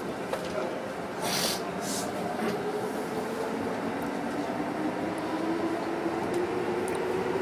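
Electric train running, heard from inside the car: steady rolling rumble with a motor whine that slowly rises in pitch as the train gains speed. Two short hisses come about one and two seconds in.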